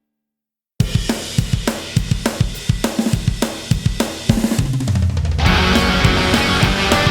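Rock music track: after a brief silence, a drum kit starts about a second in with a steady, driving beat of kick, snare and cymbals; bass joins around four seconds in and the full band with guitars comes in about a second later.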